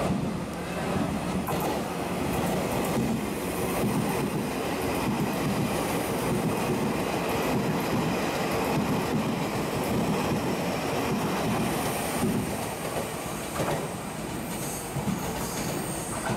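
TRA Puyuma Express (TEMU2000 tilting electric multiple unit) running past close by: a steady rumble and clatter of its wheels on the rails, easing a little near the end.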